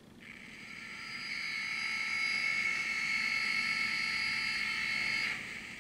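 The DCC sound decoder in an HO scale SD45T-2 model diesel locomotive plays a steady sound of several high tones through the model's small speaker. It comes in sharply, grows louder over about two seconds, holds, and stops shortly before the end.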